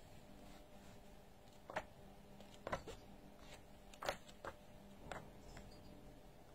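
Paper pages of a thick paperback book being flipped by hand: five or six brief page rustles and flicks, the loudest about four seconds in.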